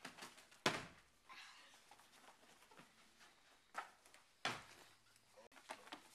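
Hands and feet slapping and thudding on a plastic-sheeted floor mat during cartwheels and handstands: one sharp thump a little under a second in, two more at about four and four and a half seconds, with lighter scuffs between.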